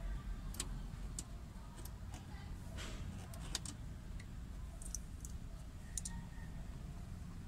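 Scattered small clicks and ticks of a screwdriver and screws against plastic dashboard trim, about eight in all, irregularly spaced, over a low steady hum.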